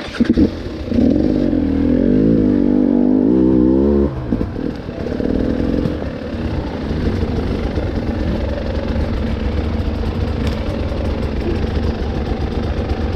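Engine of an off-road trail vehicle revving hard for about three seconds, its pitch rising and falling under the throttle, then dropping to a lower, steady running note. A few knocks sound at the very start.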